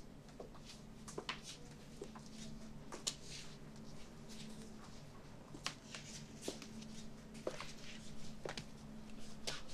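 Slow footsteps on a hard floor, about one step a second, over a faint steady low hum.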